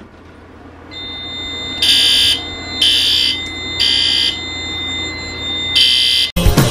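Fire alarm horn-strobes sounding the evacuation signal: three short blasts about a second apart, a pause, then the next round starting, over a steady high tone. The panel is in alarm, set off by a pull station.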